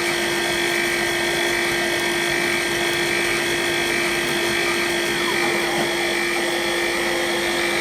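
CNC mill spindle running at a steady speed while cutting a part, a continuous machine whine holding one pitch, with no change in speed.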